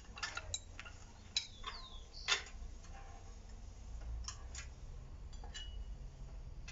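Scattered metallic clicks and taps from a Stilson pipe wrench gripping a steel bar clamped in a bench vise, as the bar is twisted cold, with one short squeak about a second and a half in. A steady low rumble lies underneath.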